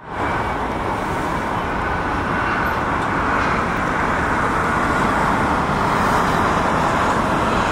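Steady rushing noise of road traffic, swelling slightly toward the end.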